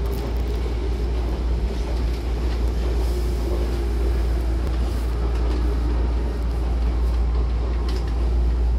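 Steady low hum and running noise of a Hankyu electric train standing at a station platform, with a faint steady tone that fades out about six seconds in.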